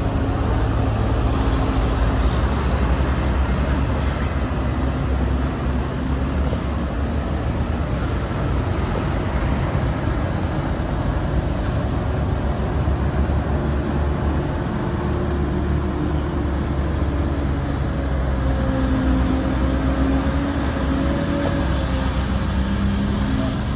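Road traffic noise dominated by a heavy vehicle's engine running steadily, with a faint engine note that climbs slightly in pitch near the end.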